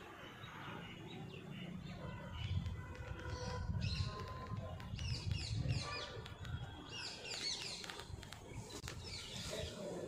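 Many small birds chirping and twittering in quick, pitch-bending notes, thickest in the second half, over a low, uneven rumble.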